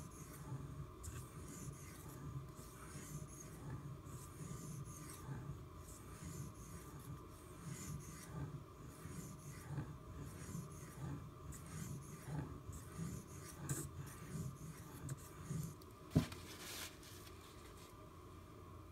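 1095 carbon-steel pocketknife blade stroked back and forth on a Shapton Glass whetstone in the polishing stage: a soft, even scraping, about two strokes a second. A sharp click about sixteen seconds in, after which the strokes stop.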